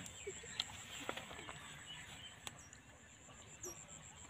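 Faint rural ambience: a steady high-pitched insect drone with scattered short bird chirps, and a few soft clicks.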